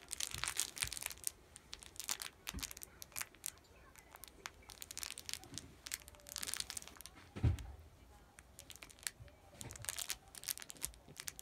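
Pomeranian puppy shaking and chewing a plush toy with a plastic teething ring: rustling and scuffing of the fabric toy against the mat in repeated short bursts, with a low thump about halfway through as the toy or puppy hits the floor.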